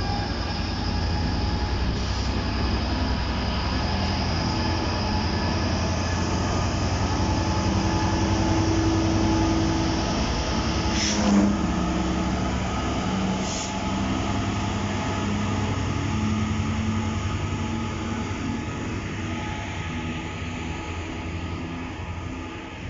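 GBRf Class 66 diesel-electric locomotive, with its two-stroke V12 diesel running, drawing a train of hopper wagons slowly past, a steady low rumble with high steady tones. There is a sharp clank about eleven seconds in. The engine sound fades near the end as the wagons roll by.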